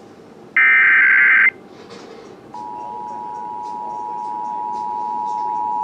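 Emergency Alert System broadcast tones: a burst of warbling digital SAME header data ends about a second and a half in. About a second later the steady two-tone EAS attention signal (853 and 960 Hz together) starts and slowly gets louder, announcing the monthly test message.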